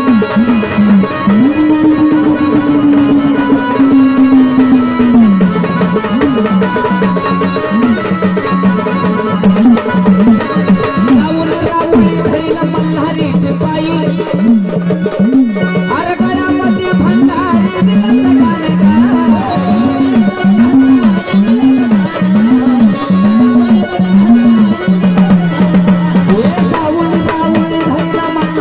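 Marathi gondhal folk music without singing: drums keep a steady rhythm under a melody line that repeats a short rising-and-falling phrase over and over.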